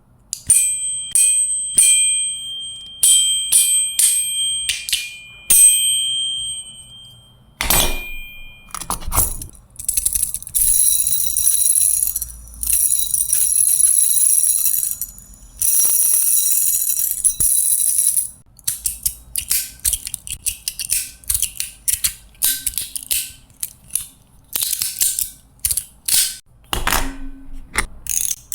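Metal fidget EDC toys being played with. First come sharp metallic clicks that leave short high ringing tones, then a steady high-pitched hiss for several seconds. A long run of quick, sharp clicks and snaps follows.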